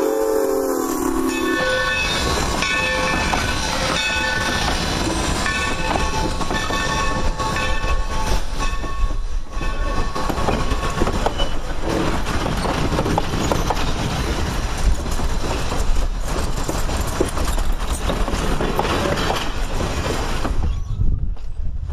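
Train of passenger coaches rolling past close by behind a steam locomotive: a steady rumble with clicking of wheels over rail joints and faint high wheel squeal in the first half. The tail of the locomotive's steam whistle sounds and stops about a second in.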